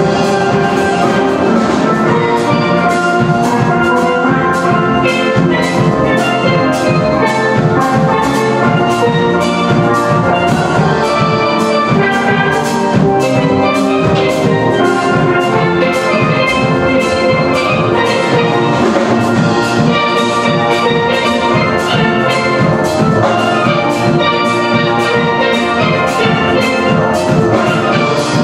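Steel band playing a calypso: steel pans of several ranges strike a busy melody and chords over an even, driving rhythm with drums.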